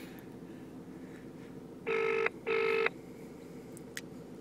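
British telephone ringing tone heard down the line by the caller: one double ring, two short buzzing pulses about two seconds in. The number being called has not yet answered.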